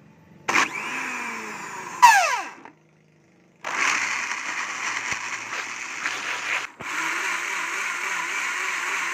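Electric countertop blender blending eggs, shallots and spring onion into a seasoning paste. It starts with a short burst that spins down with a falling whine. After a pause it runs steadily in two longer stretches with a brief stop between them.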